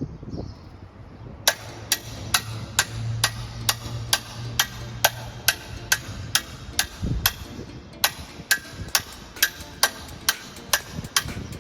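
Sharp, evenly spaced hammer blows, about two or three a second, starting about a second and a half in, with a low hum under the first few seconds of them.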